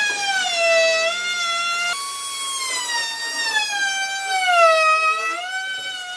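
Background music: a slow melody of long held notes that slide smoothly up and down in pitch.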